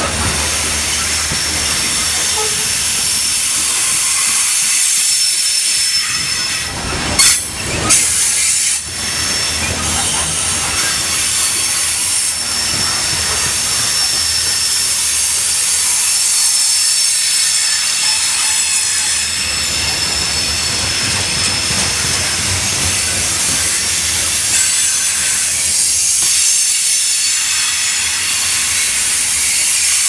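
Coal train's hopper cars rolling past, steel wheels on the rail giving a steady high hiss and squeal. A few loud bangs come about seven to eight seconds in.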